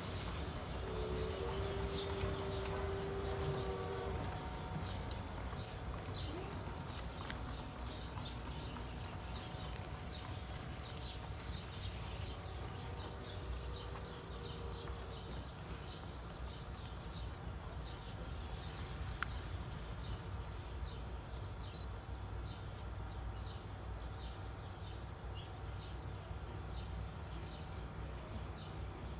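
Crickets chirping in a steady, evenly pulsed high trill over a low steady rumble.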